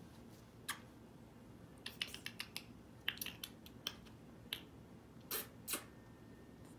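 A cat licking its fur: a scatter of small, quiet wet clicks at irregular times, some in quick runs, with two slightly longer ones near the end.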